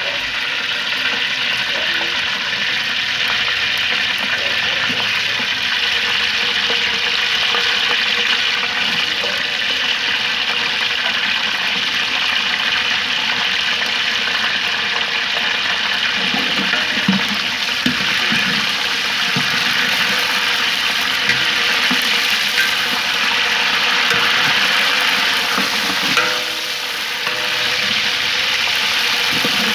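Food frying in hot oil in a cooking pot: a steady sizzle, with occasional low scraping stirs about halfway through.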